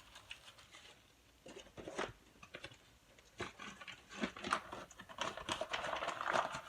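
Close-up eating sounds: scattered crunches and wet mouth clicks of someone chewing food, thicker and busier from about four seconds in.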